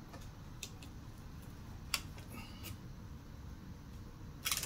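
Light clicks and taps from fingers handling a balsa-stick model airplane frame on its paper plan, with one sharper click about two seconds in and a quick run of clicks at the end.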